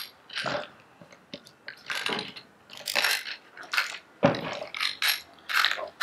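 Battery being pressed into and shifted about in a plastic and sheet-metal battery bracket with a foam inlay: a string of irregular clicks, knocks and short scrapes, the heaviest knock about four seconds in.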